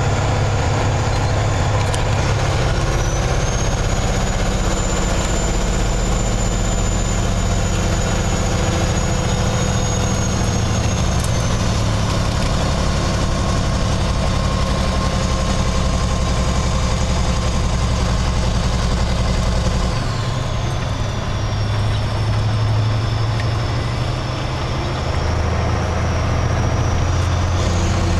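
Kenworth semi-truck's diesel engine running steadily, heard from inside the cab, with a high whine that rises and holds for several seconds. About twenty seconds in the engine note drops and goes a little quieter, and a second high whine falls, then slowly rises again near the end.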